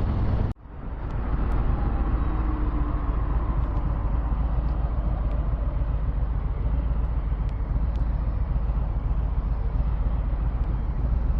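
Harley-Davidson Low Rider S motorcycle cruising, a steady low engine rumble with road and wind noise, picked up by a helmet-mounted microphone. The sound cuts out abruptly for an instant about half a second in, then swells back up.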